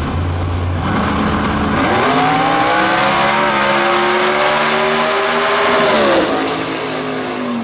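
Drag-racing cars running hard down the strip at full throttle, the engine pitch climbing as they pull, then dropping sharply about six seconds in as they back off.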